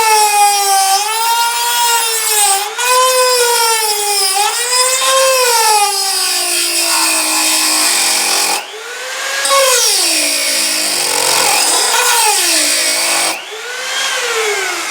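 Dremel rotary tool with a diamond cutting wheel grinding down a metal door strike plate: a high whine with a harsh grinding hiss, its pitch sagging and recovering as the wheel is pressed into the metal. The sound eases briefly about two-thirds of the way through and again near the end.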